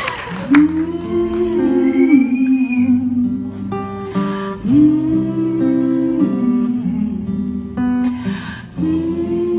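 Acoustic guitar played live, chords picked and strummed in a slow phrase that repeats about every four seconds.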